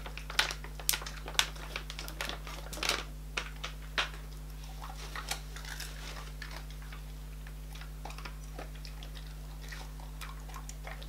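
A dog chewing a piece of dried turkey meat snack: a run of short crunching clicks from the bites, frequent in the first half and thinning out later.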